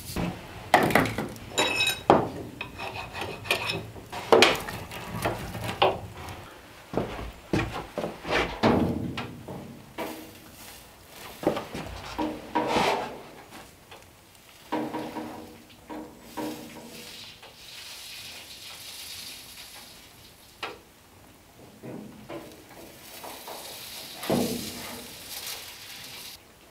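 Irregular clinks, knocks and scrapes of metal tools on a copper sheet-metal sink box being soldered with an antique soldering iron, one knock ringing briefly about two seconds in. In the second half the knocks thin out and a soft hiss comes and goes as the hot iron works along the seams.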